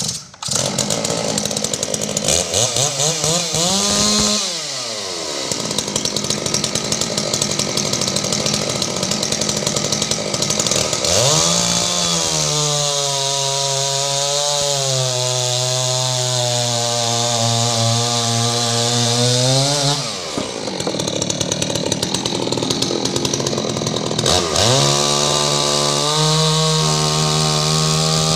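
Stihl MS 660-pattern two-stroke chainsaw at full throttle, cutting through a hard-barked palm log. The engine pitch sinks as it works in the cut, rises again about twenty seconds in, then drops back under load near the end.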